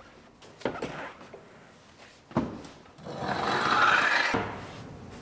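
A pickup truck seat being manhandled out of the cab: two short knocks as the seat frame bumps, then a scraping rub about three seconds in that lasts just over a second as the seat slides out.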